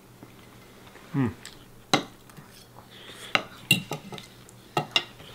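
Metal forks clinking and scraping against dinner plates as people eat: a sharp clink about two seconds in, then a quick run of clinks in the second half.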